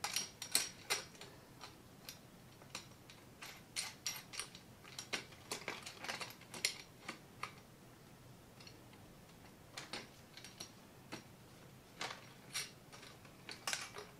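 Light, irregular metallic clicks and ticks of a kids' bike's front axle hardware (axle nut and tabbed washer against the steel fork) as the wheel is seated in the fork and the nut is fitted by hand. The clicks come in quick clusters, pause for about two seconds midway, then resume more sparsely.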